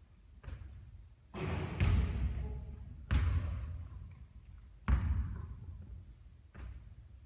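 A basketball bouncing on a hard court about six times at uneven intervals, each bounce a sharp thud that rings on for a moment.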